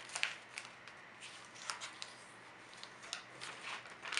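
Shiny metallic gift-wrap paper being folded and creased by hand: scattered soft crinkles and rustles.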